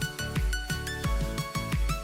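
Electronic pop music with a steady kick-drum beat, about two beats a second, and synth chords, in an instrumental stretch without singing.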